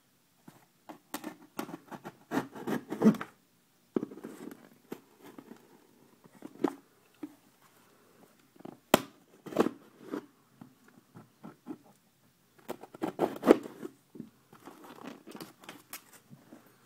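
A small blade scraping and slicing through packing tape and cardboard on a shipping box, in irregular scratchy strokes with a few sharp clicks, the sharpest about nine seconds in.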